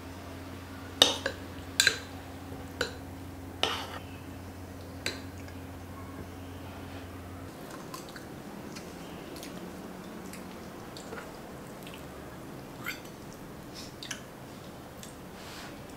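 Eating utensils clinking against a black earthenware stew pot as the egg in kimchi stew is broken up and stirred, five sharp clinks in the first five seconds. Softer clinks near the end as a spoon scoops rice.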